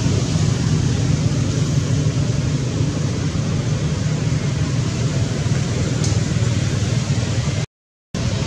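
Steady low rumble with an even hiss, with no clear animal calls in it; it cuts out to complete silence for about half a second near the end.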